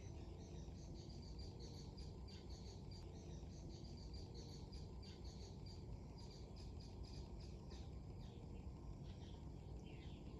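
A small bird chirping in quick, high, repeated notes over a steady low rumble of wind on the microphone.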